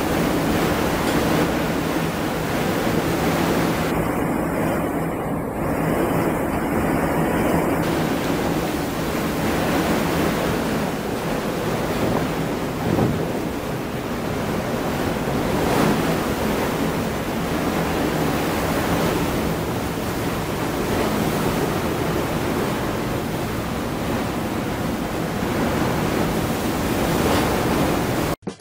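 Gale-force wind blowing across the microphone over the rush of heavy, breaking seas around a ship at sea in a storm: a steady, deep rushing noise that cuts off abruptly at the very end.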